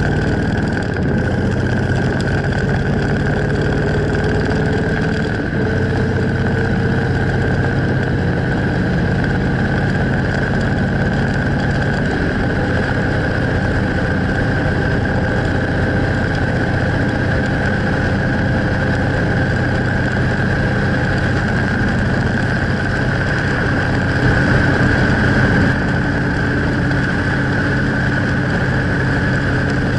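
Custom motorcycle's engine running steadily while riding along at an even speed, with wind rushing over the microphone.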